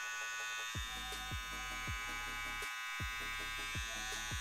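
Babyliss Lo-Pro FX hair trimmer switched on and running with a steady, high-pitched motor buzz. It is quieter than a Babyliss Skeleton trimmer.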